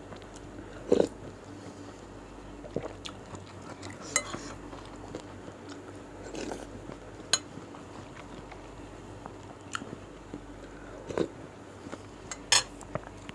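Metal spoon and fork clinking now and then against a ceramic soup bowl, between close-miked chewing and mouth sounds of someone eating soft beef meatballs in broth.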